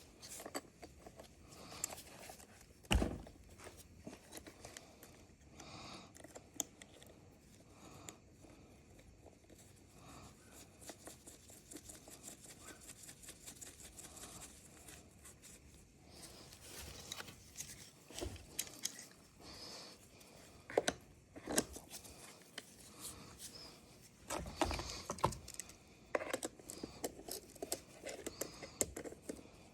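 Faint, scattered clicks, taps and scrapes of tools and chainsaw parts being handled during repair work on a chainsaw's oil pump, with a louder knock about three seconds in and bunches of knocks near the end.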